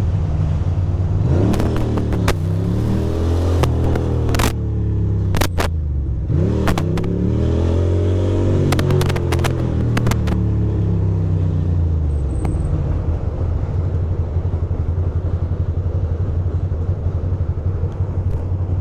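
2006 Ducati Monster 620's air-cooled V-twin engine, heard from the rider's seat, revving up and easing off twice as the bike pulls away, with a few sharp clicks. It then runs steadily at low revs for the last several seconds.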